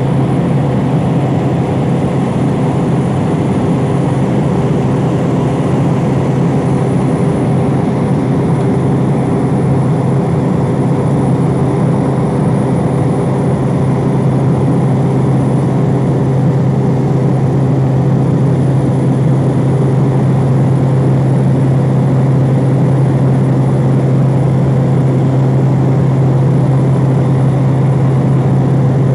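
Steady drone of a small propeller aircraft's engine and propeller, heard from inside the cabin in flight: a strong low hum with steady higher tones, growing slightly louder about halfway through.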